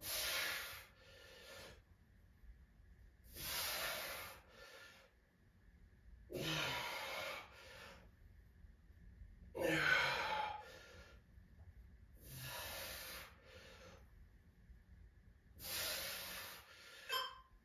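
A man breathing hard through the mouth while working through a dead bug core exercise: a loud breath about every three seconds, each followed by a shorter, softer one.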